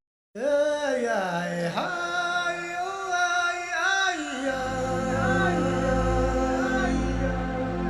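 Music with a voice singing sliding notes, starting after a split-second gap; a deep bass comes in about halfway through.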